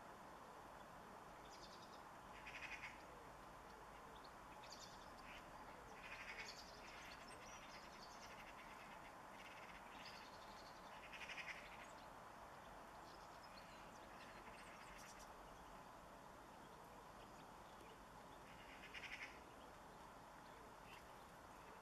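Small garden birds calling in short high chirps, four louder calls a few seconds apart and fainter ones between, over a steady low outdoor hiss.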